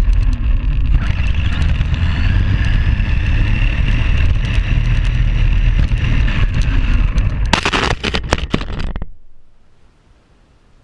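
Tamiya Grasshopper RC buggy driving, with its electric motor and gears whining over a heavy rumble and constant clicks; the crunching from the gears is what the owner puts down to a motor pinion that doesn't match. Near the end comes a cluster of loud knocks, then the sound cuts off sharply.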